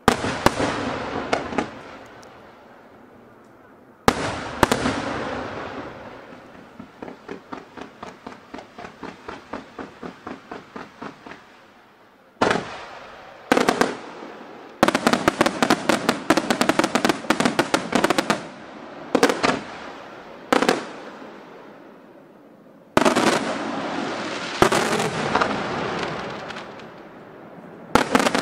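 Senatore Fireworks aerial display going off: sharp shell-burst reports, each trailing into crackle and echo. In the middle comes a quick regular run of pops about three a second, then dense rapid-fire volleys, with more single heavy bursts near the end.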